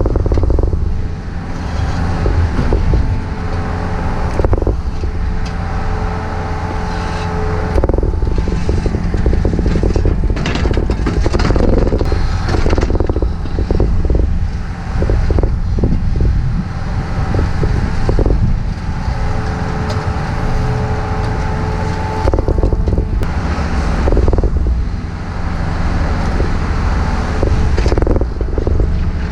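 Takeuchi TB153FR compact excavator's diesel engine running steadily under load, with a hydraulic whine that rises in and drops out twice and repeated knocks and scrapes of work going on.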